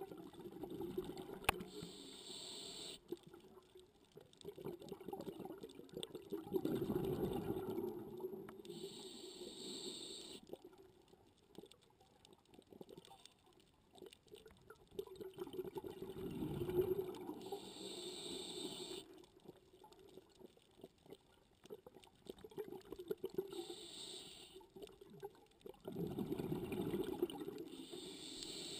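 A scuba diver breathing through a regulator underwater: short hissing inhales alternating with longer bubbling exhales, repeating about four times.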